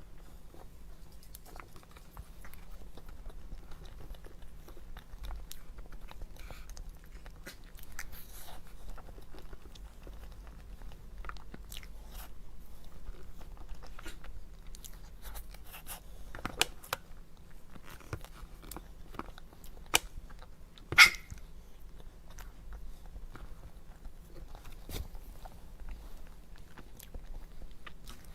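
Close-up eating sounds: a person biting and chewing dessert, with soft wet chewing, scattered small crunches and smacks, and a few sharper louder clicks about two-thirds of the way through.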